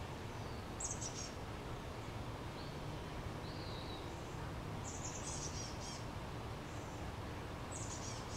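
High, thin songbird chirps in three short quick clusters: about a second in, around five seconds in, and near the end, with a couple of fainter high notes between. They sound over a steady background hiss of outdoor ambience.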